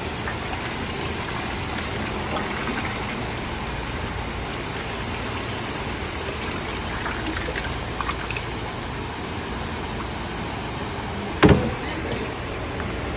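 Steady rushing noise, with faint splashing as liquid dye is squeezed from plastic bottles in thin streams into a tub of water. One sharp knock comes near the end.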